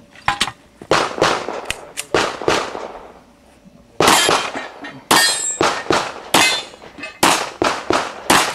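Rapid pistol fire in a practical shooting course of fire, about twenty shots in two strings with a pause of about a second and a half between them. Some hits set steel plate targets ringing with a metallic clang.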